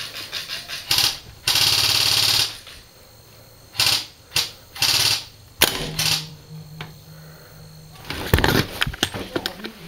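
Airsoft guns firing in quick bursts, a rapid clatter of clicks. The longest burst lasts about a second, around two seconds in, with shorter bursts after it and a cluster of sharp clicks and knocks near the end.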